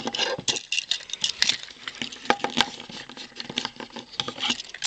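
Plastic parts of a Transformers action figure clicking and knocking as they are handled and moved, many small irregular clicks.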